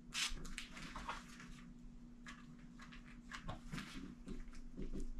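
Faint, scattered scraping and rubbing strokes of a plastic paintbrush handle spreading hot glue over mesh drywall tape on carpet.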